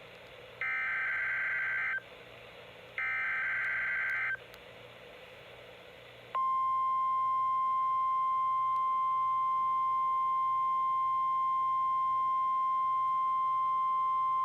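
Two Emergency Alert System SAME header data bursts, each a shrill warbling screech about a second and a half long, from a NOAA Weather Radio broadcast. About six seconds in, the steady 1050 Hz NOAA Weather Radio warning alarm tone starts and holds unbroken.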